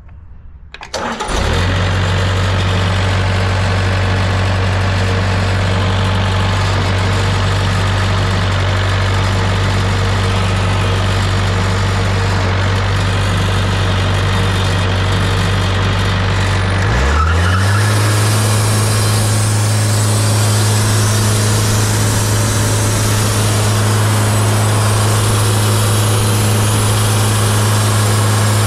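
Wood-Mizer LT50 band sawmill's engine coming up to speed abruptly about a second in and running loud and steady, then stepping up to a higher speed at about seventeen seconds and holding there.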